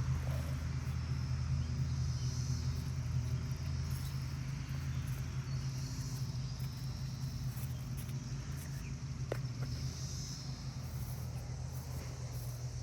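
A steady low hum throughout, with insects buzzing high above it in swells every few seconds.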